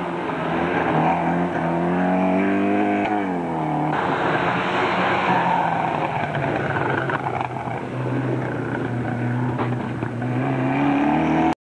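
Rally car engine running hard, its pitch climbing and dropping repeatedly as the driver works the throttle and gears, over a hiss of tyres on loose dirt. The sound cuts off suddenly near the end.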